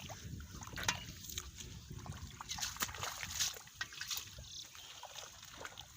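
Water splashing and sloshing as hands work through shallow water, with scattered small splashes and drips.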